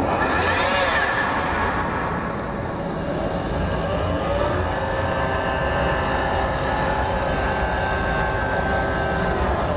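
Industrial KUKA robot arms running, their drive motors whining in pitch glides that rise and fall over a steady rumble.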